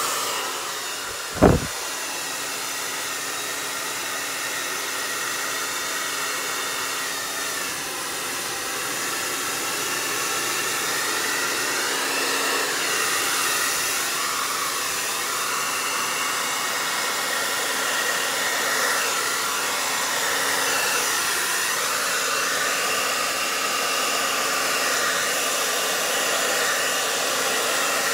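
Hair dryer blowing on high: a steady rushing with a faint motor hum, growing slightly louder. A single sharp thump about a second and a half in.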